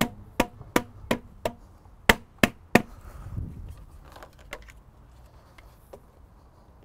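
A white mallet tapping the plastic wall panels of a 65-tonne heavy soakaway crate down into their locating lugs, about eight quick taps in the first three seconds. After that come only faint clicks of the plastic panels being handled and lined up.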